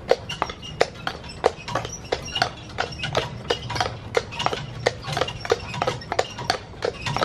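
A carriage horse's hooves clip-clopping on a paved road at a steady walk. There are about three sharp, even strikes a second.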